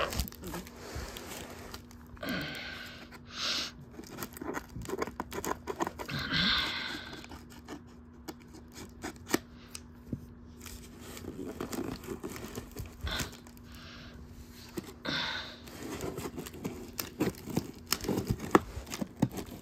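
Cardboard shipping box being opened by hand: packing tape tearing in several short rips, with cardboard scraping, crinkling and handling clicks in between. A faint steady hum runs underneath.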